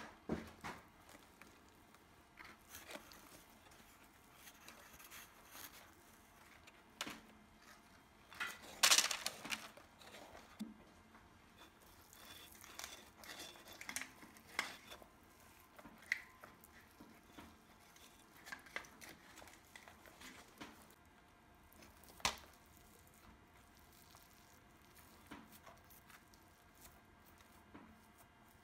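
Gloved hands dropping and packing dry, crumbly homemade sodium-silicate high-temperature cement, with soft crunching, rustling and squishing. A louder burst of rustling comes about nine seconds in, and a single sharp knock about twenty-two seconds in.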